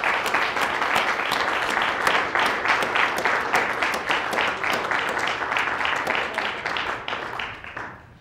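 Audience applauding: a dense patter of many hands clapping, holding steady and then thinning and fading out near the end.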